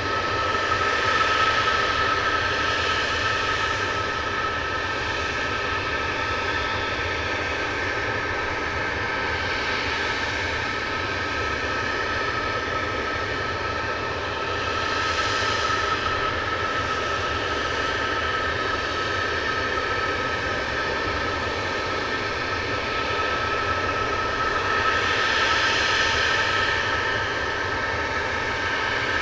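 Jet engines running at idle: a steady whine with two high held tones over a low rumble. The hiss swells a few times.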